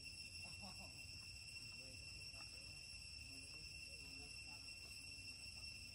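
Faint, steady, high-pitched insect drone, like crickets, with faint distant voices now and then.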